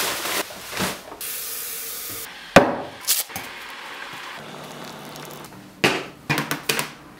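Household handling noises around a mug of tea: a burst of hiss, one sharp knock (the loudest sound), a low steady hum for a couple of seconds, then a few quick knocks and clatter near the end.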